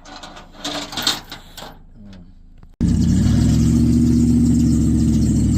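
A few light metallic clinks, then after an abrupt cut about three seconds in, an old Ford F-150 pickup's engine running loud and steady with a constant low pitch.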